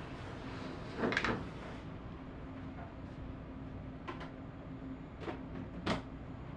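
Food-stall handling noise over a steady hum of shop equipment: a short clatter about a second in, then a few sharp clicks of utensils and containers being handled.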